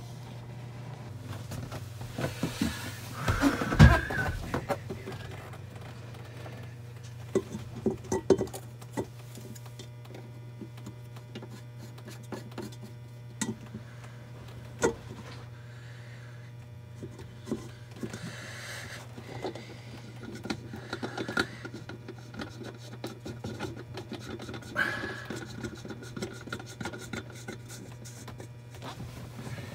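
Hands rubbing and scraping around the drain rim of a stainless-steel sink, cleaning it, with scattered small knocks and clicks over a steady low hum; one louder thump about four seconds in.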